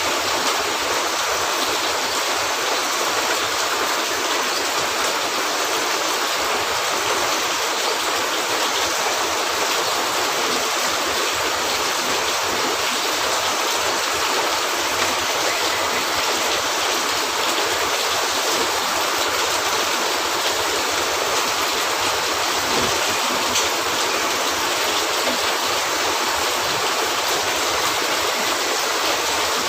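Steady rain falling, an even unbroken hiss, with a couple of faint clicks near the middle and later on.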